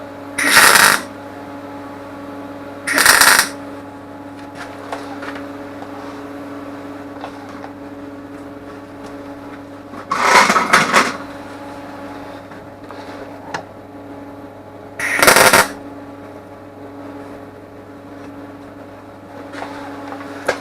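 Four short tack welds, each a burst of welding-arc crackle under a second long, stitching a new hinge piece onto a tractor door. A steady electrical hum runs underneath.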